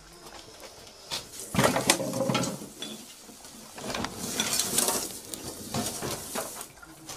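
Household clutter (cloth, plastic items, a dustpan) rattling and scraping as a king cobra is hooked out from among it with a metal snake hook, in irregular spells that are loudest about two seconds in and again around five seconds in.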